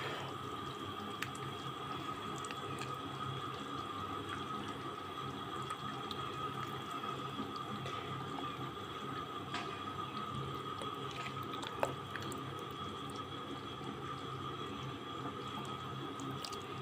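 Salted water boiling in a steel pot with stuffed mombar sausage casings poaching in it, a steady bubbling and hiss with a few faint ticks and one slightly sharper click about two-thirds of the way through.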